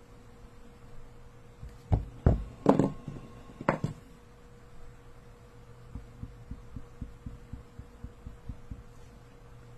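A few loud knocks and clatter about two seconds in as the paint markers are handled and swapped, then a run of soft taps, about four a second, as a paint marker's tip dabs short strokes onto the spinning disc. A low steady hum underneath.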